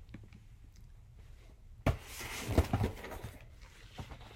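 Handling noise: a sharp knock about two seconds in, then rustling and scraping for a second or so, as a comic slab and its packaging are handled and set down.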